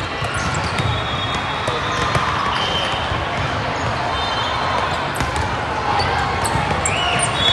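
Indoor gymnasium during a youth volleyball match: a steady din of players' and spectators' voices echoing in the hall, with short high squeaks and a few sharp hits from play on the court.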